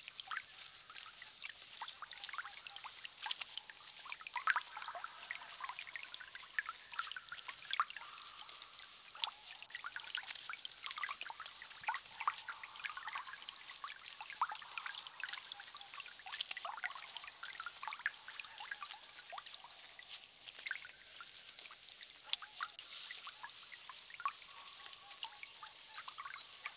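Faint trickling water, with a steady stream of small drips and splashes.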